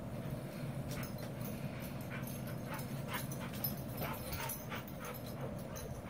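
A dog whimpering in a run of short, high whines, over a steady low hum.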